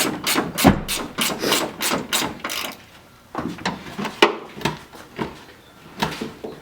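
Hand ratchet working the trunk hinge bolts: a quick run of rasping ratchet strokes, about three a second, then a pause and a few more scattered strokes.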